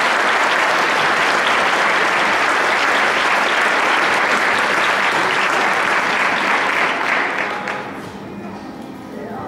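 Audience clapping steadily, then dying down about eight seconds in.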